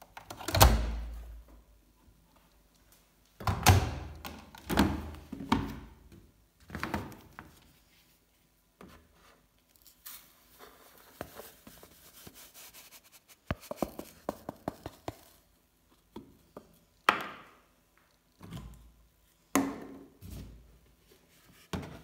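Handling a Samsung front-loading washing machine: a heavy thunk about half a second in as the door is pushed shut, then a string of knocks and thumps. Midway, powder detergent pours into the dispenser drawer with a soft grainy hiss and a quick run of small clicks, and a few more knocks follow near the end.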